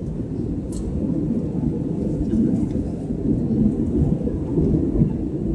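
Steady low rumble of an airliner's engines and airflow, heard inside the passenger cabin, with a faint tick near the start.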